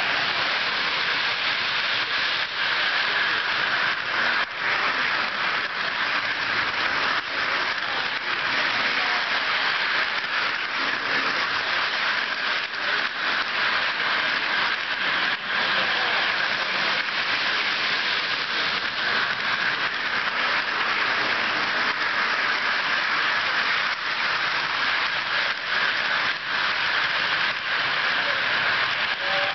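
O gauge model train rolling on three-rail FasTrack, heard from a camera riding on one of its cars: a steady rolling rattle and hum with frequent small clicks from the wheels over the track.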